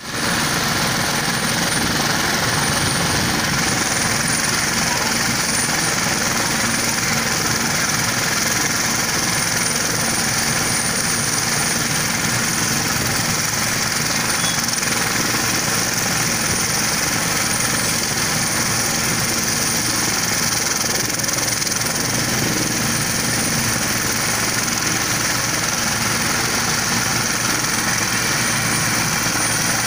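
Turbine helicopter running on the ground with its rotor turning before lift-off: a steady rotor and engine noise under a high, steady turbine whine.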